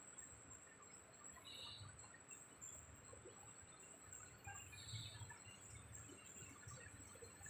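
Near silence: faint room tone with two brief, faint high chirps, about a second and a half in and again about five seconds in.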